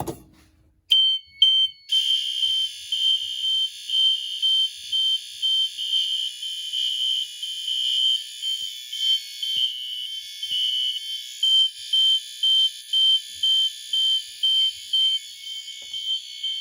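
Fire alarm horns sounding after a pull station is pulled: a couple of short tones about a second in, then a loud high tone pulsing about twice a second in march time over a steady continuous tone.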